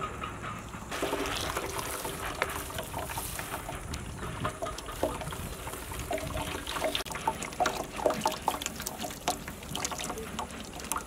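Blended pomegranate juice pouring from a blender jar and trickling through a steel mesh strainer into a large metal pot. A steel spoon scrapes and presses the pulp in the strainer, making many small clicks and scrapes.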